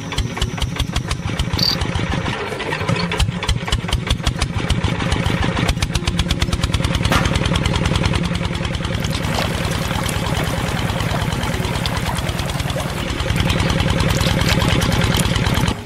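Miniature model single-cylinder diesel engine catching at once after a cord pull and running with a fast, even firing beat while driving a belt-driven piston water pump. It runs a little louder for the last few seconds.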